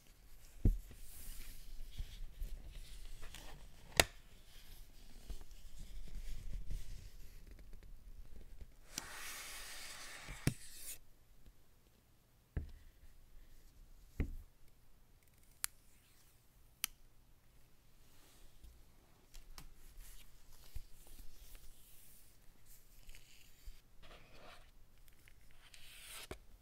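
Apple Watch Series 3 cardboard box, paper sleeve and sport band handled by gloved hands: cardboard and paper sliding and rubbing, with scattered sharp taps and clicks as pieces are set down. About nine seconds in comes a longer hissing slide lasting about two seconds.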